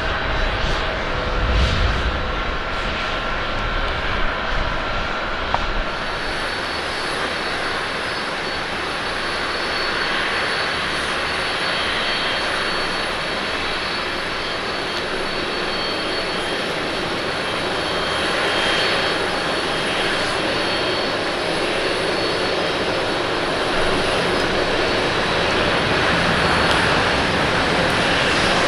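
Jet airliner engines on the runway: first a Delta Airbus A330-900 moving along it. About six seconds in, the sound changes to an SAS Airbus A350-900 with Rolls-Royce Trent XWB engines landing and rolling out on a wet runway. Its steady jet roar carries a high whine and swells a little toward the end.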